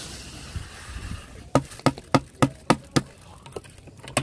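Dry rice sliding out of a plastic bucket into a pot of boiling water with a fading hiss, then six quick, sharp knocks about a quarter-second apart.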